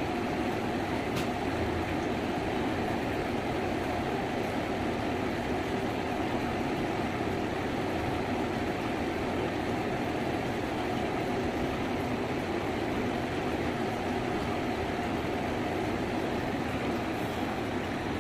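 Steady background noise, an even rushing hum with a faint steady tone in it, and one faint click about a second in.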